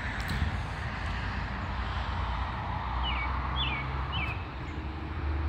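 Outdoor ambience with a steady low rumble and hiss. About three seconds in, a bird gives three short falling chirps roughly half a second apart.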